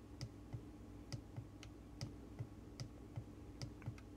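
A small push button on a digital microscope's LCD monitor, clicked repeatedly to step the zoom out: about a dozen faint, evenly spaced clicks, two to three a second.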